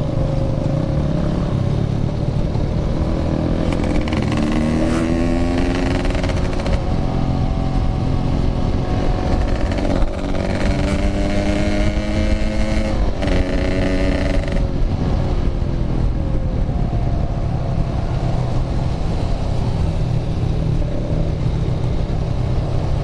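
Yamaha RX King's 135cc two-stroke engine running under the rider, its revs climbing and dropping a few times as it pulls through the gears, over a steady rumble of wind on the helmet camera.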